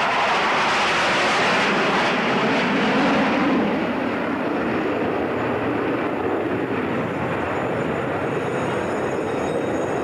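Formation of Sukhoi Su-27 fighters passing overhead, the broad noise of their twin turbofan jet engines. It is loudest and brightest for the first three or four seconds, then a little quieter and duller.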